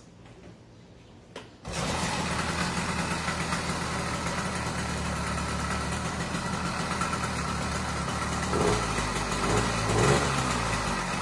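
Motorized bicycle's small gasoline engine catching after a couple of clicks, about two seconds in, then running steadily, with a few brief rises in speed near the end. The engine, which had refused to start, is now running.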